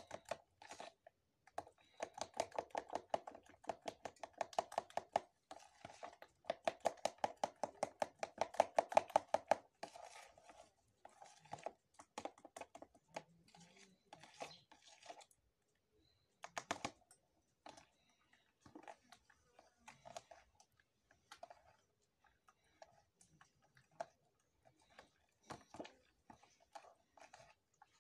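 Pancake batter being mixed and squeezed by hand in a plastic bowl: quick wet squelching strokes, fast and rhythmic for the first ten seconds or so, then slower and more scattered.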